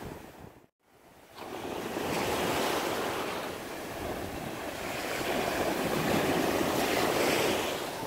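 North Sea surf washing up the beach, foamy wash sliding over the sand, swelling and easing as each wave comes in. The sound drops out to silence for a moment just before a second in.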